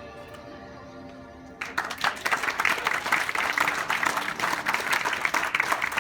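Soft music of held, sustained notes, then a crowd applauding, breaking out suddenly about one and a half seconds in and keeping on.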